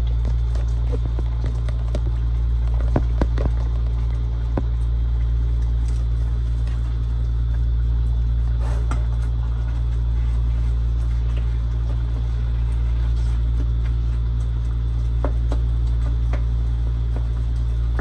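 Metal spoon stirring ground beef in a small pot, with scattered light scrapes and clinks against the pot, over a steady low rumble.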